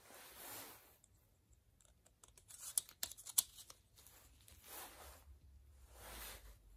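Plastic-and-steel onion holder handled in gloved hands: soft swishing rubs, and a quick cluster of light clicks and taps about three seconds in as the plastic guard is fitted over the steel prongs.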